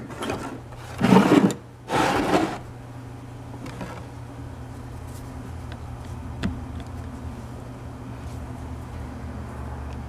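1920s Century quarter-horsepower repulsion-start induction motor running with a steady low electric hum. Two short, loud scuffing noises come about one and two seconds in.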